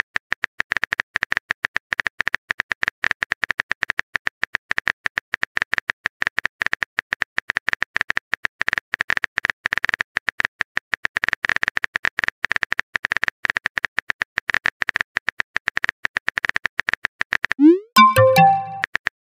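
Rapid stream of synthetic typing clicks from a chat-story animation as a message is typed out letter by letter. About 18 s in, the clicks break for a short rising swoosh and chime as the message is sent, then the typing clicks start again.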